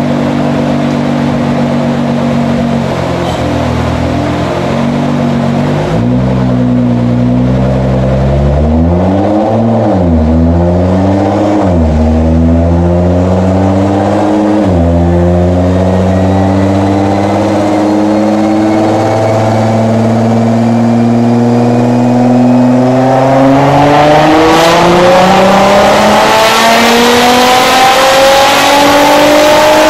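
Nissan GT-R R35's twin-turbo V6 running in gear on an all-wheel-drive dyno. It holds a steady note, blips up and down a few times, then climbs steadily in pitch over the last several seconds as it accelerates the rollers.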